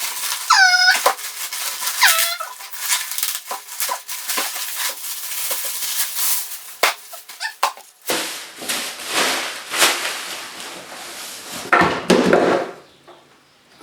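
Packaging rustling and clattering as new go-kart wheels are unwrapped and handled. There are two short squeaks near the start, and a longer stretch of dense rustling in the second half.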